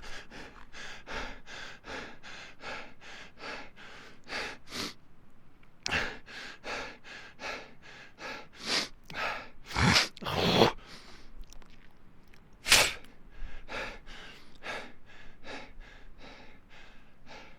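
A person panting hard from running: quick, short breaths at about three a second. The pace breaks off briefly, then comes a few deeper, louder gasps, one sharp one the loudest, before the quick panting resumes more faintly.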